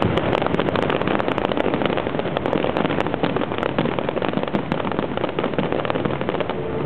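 Fireworks crackling: a dense run of rapid pops and snaps from bursting shells, thinning out near the end.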